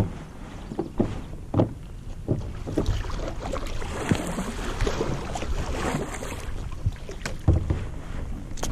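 Kayak paddle strokes and splashing water as a plastic kayak is paddled along, with a few sharp knocks and a busier stretch of splashing in the middle.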